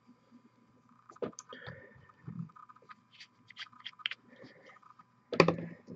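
Scattered light clicks and taps of small objects being handled at a hobby painting desk, with a short, louder voiced sound near the end.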